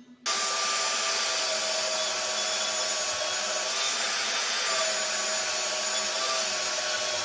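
Portable band saw switching on and running steadily with a motor whine while a steel hotdog muffler is fed against the blade to cut off its threaded end.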